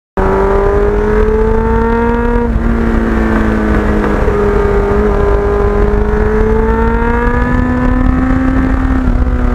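Kawasaki Ninja GPX750R's inline-four engine through a Norton muffler, running under way. Its pitch climbs, drops with a gear change about two and a half seconds in, then climbs slowly again and dips near the end, over a steady low rumble.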